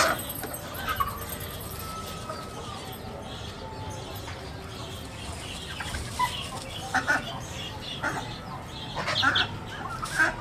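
Yard fowl clucking and calling on and off as they are fed, with the odd flap of wings.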